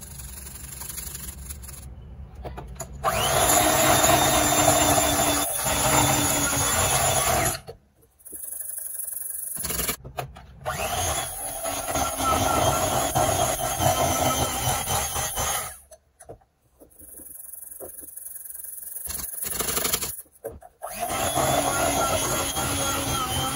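Electric hand mixer running in three bursts, its beaters whirring through stiff cookie dough as flour is worked into creamed margarine. The motor whine rises as it spins up at the start of each burst, and each burst cuts off abruptly.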